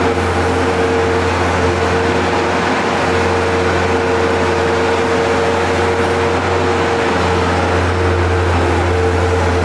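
Bobcat S130 skid-steer loader's diesel engine running steadily while it carries and lifts a bucket of feed.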